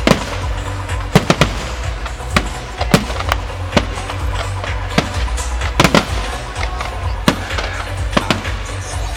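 Fireworks display: a dozen or so sharp bangs and cracks going off at irregular intervals, with music playing underneath.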